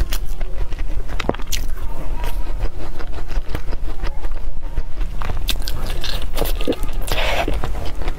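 Close-miked chewing: a run of wet mouth clicks and crunchy bites, with one louder bite about seven seconds in.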